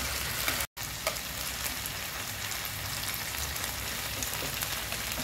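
Squid simmering in a fish-sauce glaze in a nonstick frying pan: a steady crackling sizzle with small pops as the sauce reduces to a thick, sticky glaze. The sound drops out for an instant under a second in.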